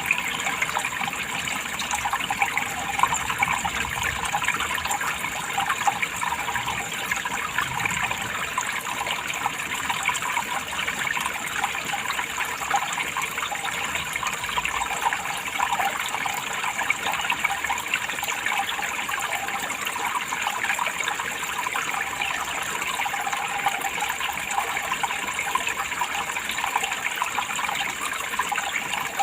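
Water running and splashing steadily in an even, unbroken stream.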